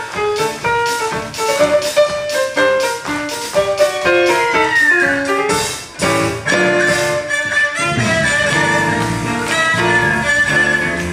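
Haegeum, the Korean two-string bowed fiddle, playing a bright melody with sliding notes over piano accompaniment. About six seconds in the quick piano notes give way to longer held notes under the haegeum.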